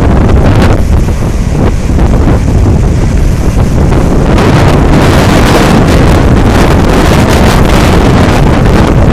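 Hurricane wind buffeting the microphone in a loud, rough roar that grows stronger and hissier in a gust from about four seconds in.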